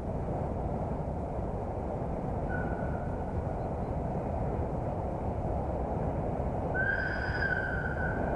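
The whistle of an approaching 060-DA (ST43) diesel-electric freight locomotive: a faint short high tone about two and a half seconds in, then a louder one from about seven seconds that is still held at the end. Under both runs a steady low rumble.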